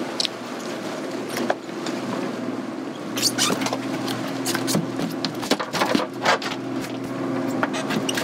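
Twin Evinrude 250 outboards running with a steady hum. From about three seconds in, a run of sharp knocks and slaps as a gaffed wahoo is swung aboard and thrashes on the fiberglass deck.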